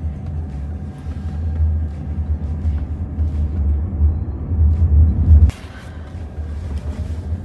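Low road rumble inside the cabin of a moving Jaguar I-PACE electric SUV, with no engine note. It grows louder toward five seconds in, then drops suddenly to a quieter hum.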